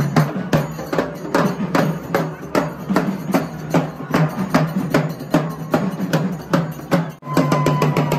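Steel-shelled drums beaten with sticks in a fast, steady beat of about four strokes a second. The drumming breaks off for a moment near the end, and a short steady high tone sounds as it resumes.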